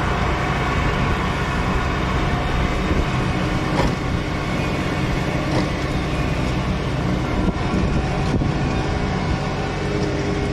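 Tractor engine running steadily under load as it mulches hay, with a few brief knocks.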